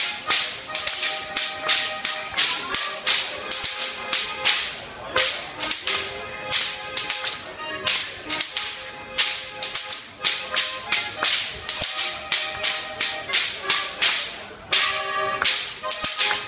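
Several Bavarian whips (Goaßl) cracked in rhythmic Goaßlschnalzen, sharp cracks about three a second in short phrases with brief pauses between them, over band music.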